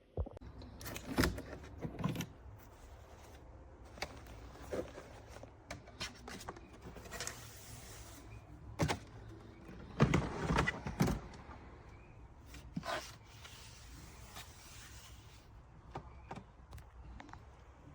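A series of irregular knocks, clicks and rubbing sounds, loudest about a second in and again around ten seconds in, like something being handled.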